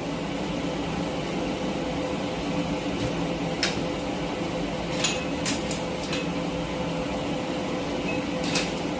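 Steady machine hum, like a fan running, with a few light clicks and taps over it.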